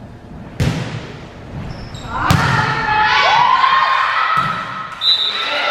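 A volleyball being hit hard twice, about half a second in and again past two seconds, each smack ringing in a gymnasium. After the second hit come several voices shouting and calling, with another couple of knocks of the ball.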